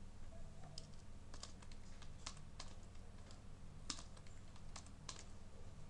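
Typing on a computer keyboard: about a dozen irregular keystrokes, over a steady low hum.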